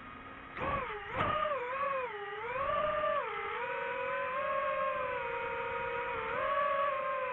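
DJI FPV drone's motors spinning Gemfan Hurricane 5236 propellers: two sharp throttle punches about half a second and a second in, then a steady motor-and-prop whine whose pitch dips and rises with the throttle.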